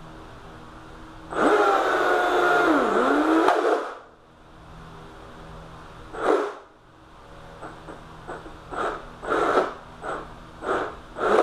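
Brushless motor in an RC hydroplane spinning its flex shaft, run dry without oil. One whirring run of about two and a half seconds with a whine that dips and rises in pitch, then a string of short throttle blips.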